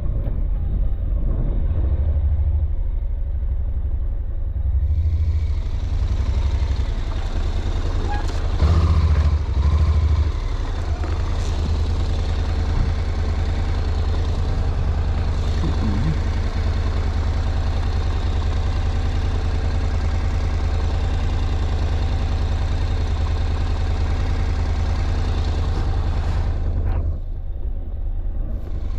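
Motorcycle engine running steadily with a low rumble, a little louder for a couple of seconds about eight to ten seconds in.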